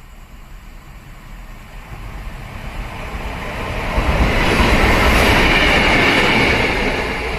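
Two coupled Taiwan Railway locomotives, an E200-class electric and an R100-class diesel-electric, approaching and passing close at speed: a rumble that grows steadily and is loudest from about four seconds in as they go by, with wheel-on-rail clatter and a high hissing ring from the wheels.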